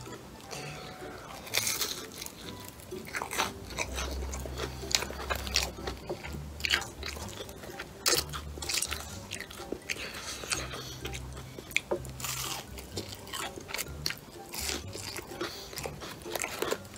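Close-up crunching and chewing of a breaded, deep-fried fish cutlet dipped in tartar sauce, with many crisp bites throughout.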